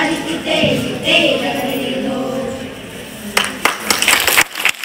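A group of children singing together, fading out, then a short burst of irregular hand clapping about three seconds in.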